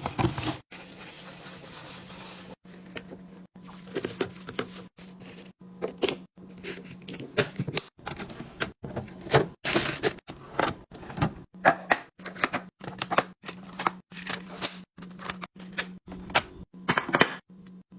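Food containers and packaging being handled and set down while restocking a fridge: irregular clatters, clicks and knocks, over a steady low hum.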